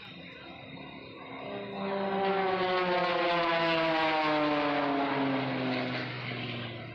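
A propeller-driven aerobatic airplane flies past. Its engine drone swells about two seconds in, then slides steadily down in pitch and fades near the end as it passes.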